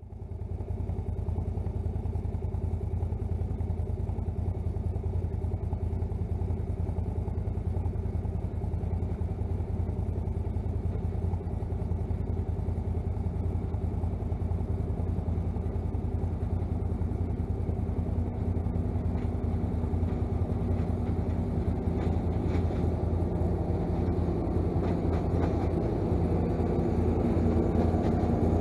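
Tractor and pull-type forage harvester chopping haylage: a steady low engine drone that grows slowly louder as the machine approaches.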